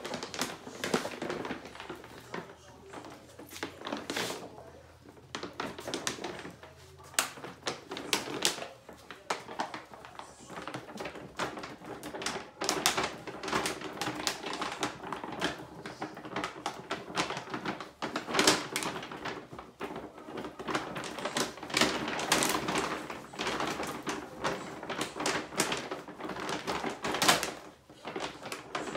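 Royal Canin dog food bag crinkling and crackling as a yellow Labrador puppy roots around inside it with its head, in irregular rustles and taps.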